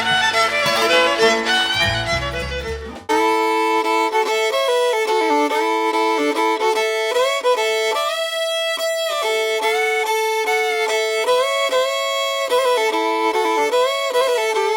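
Background music: a country band fades out in the first few seconds, then a solo fiddle plays a slow melody of held and sliding notes.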